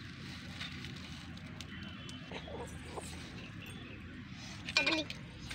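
Low steady background noise with one short animal call near the end, the loudest sound here.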